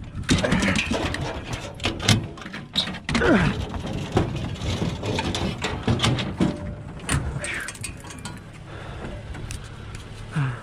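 Hunting hounds being loaded into an aluminium dog box on a pickup bed: repeated metal clanks and rattles of the crate door and latch, with a few short whines from the dogs.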